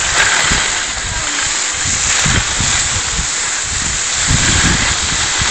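Skis sliding over hard-packed, crusty snow in a steady hiss, with wind buffeting the phone's microphone in irregular low rumbles.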